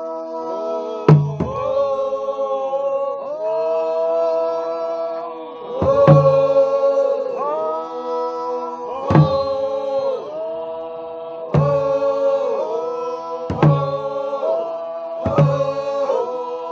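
Group chanting: several voices hold long notes that slide up and down in pitch, with six low thumps that come closer together toward the end.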